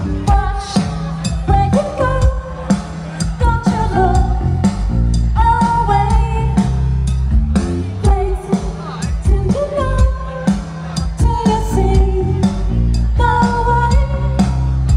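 Live band music: drums and bass with a sung melody over them.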